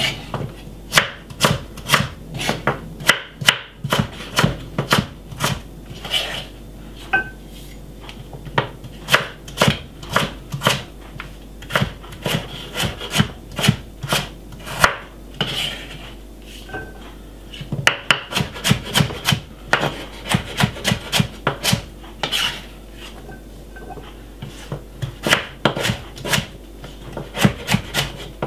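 Kitchen knife chopping peeled sweet potato into small cubes on a wooden cutting board: a long run of sharp knocks of the blade on the board, about two to three a second.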